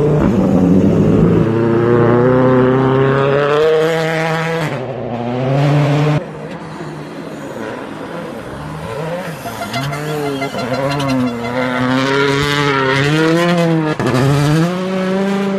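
World Rally Car engines (1.6-litre turbocharged four-cylinders) revving hard through snowy corners. First a Ford Fiesta WRC with revs climbing steadily; then, after a sudden cut about six seconds in, another car whose revs rise and fall repeatedly.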